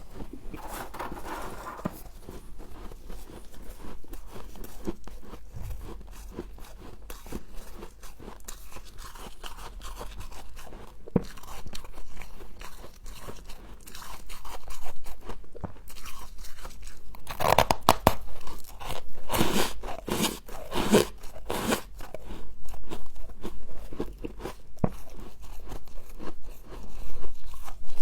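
Close-up crunching of humidifier frost being bitten and chewed, a run of crisp, crackling crunches that grows loudest and densest about two-thirds of the way in.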